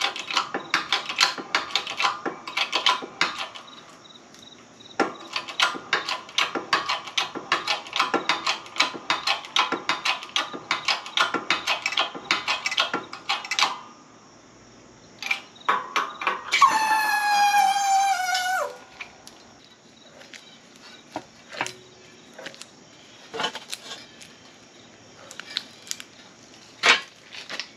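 Ratchet wrench clicking in quick runs of strokes, turning a press tool that draws the hub into the new wheel bearing of a 2005 Lexus RX 330 knuckle. Near the middle comes one whine of about two seconds that falls in pitch, followed by a few scattered metal clicks.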